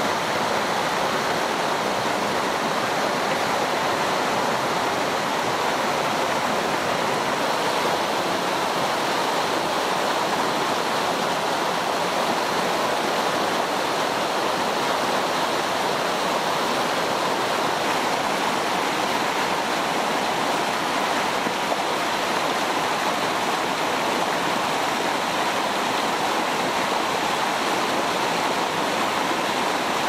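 Mountain stream running high, rushing white over boulders and small cascades: a steady, unbroken rush of water.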